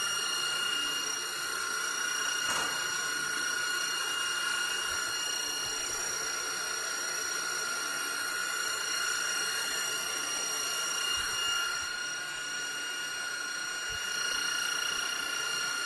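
A steady high-pitched whistle over a constant hiss of rushing air, holding one pitch throughout: air being forced through the fire-hydrant piping.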